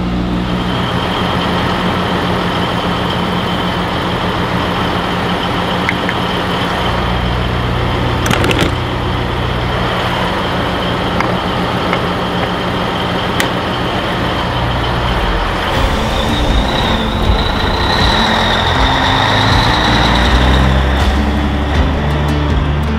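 Heavy diesel truck engine idling steadily. A faint high whine rises a little for a few seconds about two-thirds of the way through, and there are a couple of brief clicks.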